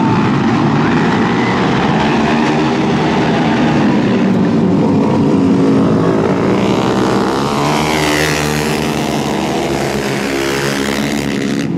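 Several flat track racing motorcycle engines running hard together, their pitch rising and falling as the bikes pass, with one clear sweep about eight seconds in.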